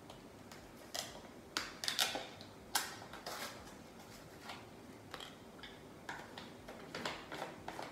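A new plastic-lidded spice jar being opened and shaken: irregular light clicks and taps, with seasoning rattling in the jar.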